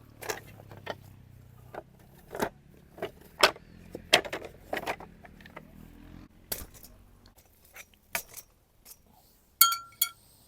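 Tableware clinking and knocking, cutlery and dishes handled at a breakfast table, in about a dozen irregular strikes. Near the end one brighter clink rings briefly, the loudest sound.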